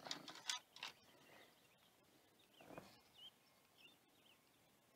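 Near silence. Near the start there are a few brief rustles and knocks from a largemouth bass being handled onto a plastic measuring board, then faint bird chirps.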